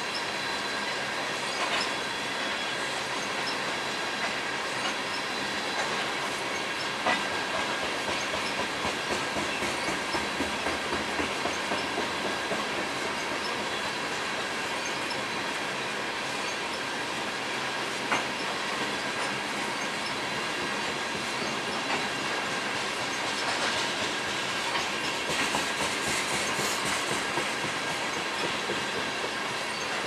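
Freight train of tank cars rolling past with a steady rattle of wheels on rail and a thin, steady high squeal from the wheels. Wheel clicks over rail joints come in quick runs of about two a second, near the middle and again near the end, with a few single sharper knocks.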